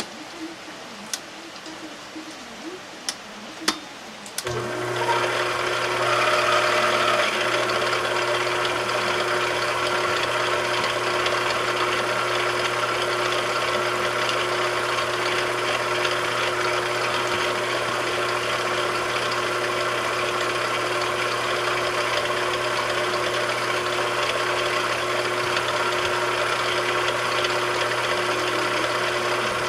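A few sharp clicks, then, about four seconds in, a machine tool's electric motor starts and runs steadily with a constant hum at one pitch.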